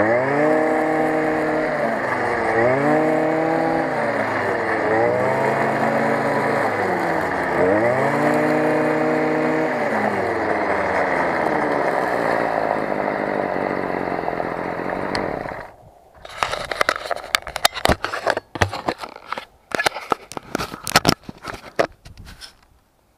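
Stihl FS 55 brush cutter's small two-stroke engine running while cutting grass, its pitch rising and falling about four times as the throttle is opened and eased off, then holding steadier before stopping abruptly about two-thirds of the way in. A scatter of knocks, clicks and rattles follows as the mounted camera is handled.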